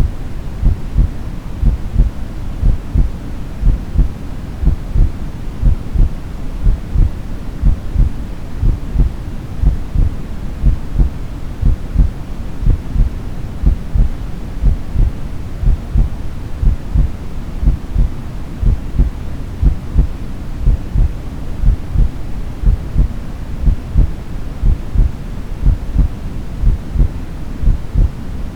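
Artificial heartbeat: low, soft thumps repeating evenly at 60 beats a minute, over a steady low white-noise hum, made to mimic the sound of the mother's womb.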